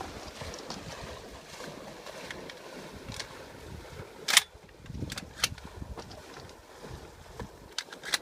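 Wind noise on the microphone with a few sharp knocks; one loud knock about four seconds in stands out above the rest.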